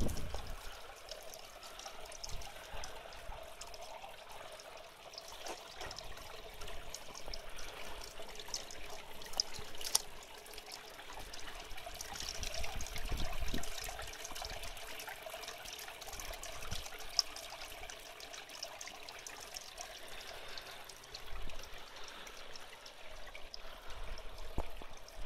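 Water trickling and pouring steadily off a stone edge into a small pond, a continuous splashing flow.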